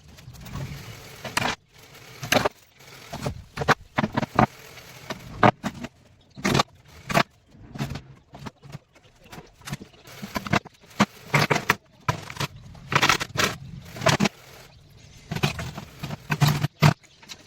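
Hand tools working wood: an irregular run of sharp knocks and short scraping strokes, a few a second with uneven pauses, as in carving a wooden headboard by hand.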